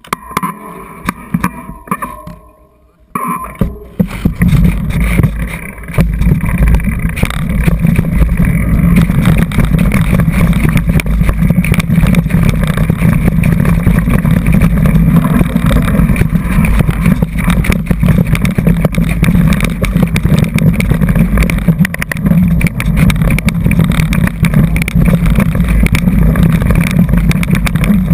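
Wind buffeting and rumble on a bike-mounted action camera's microphone as a mountain bike rides fast down forest singletrack, with rattles and knocks from the bike over the rough trail. It starts quieter and patchy, then turns loud and steady about four seconds in as speed builds.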